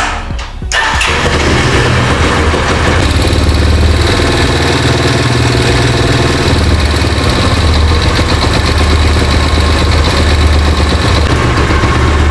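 Italika Z-200 motorcycle's single-cylinder engine starting about a second in and then running steadily. The rattle that came from the clutch on the right side of the engine is gone after a worn clutch part was replaced.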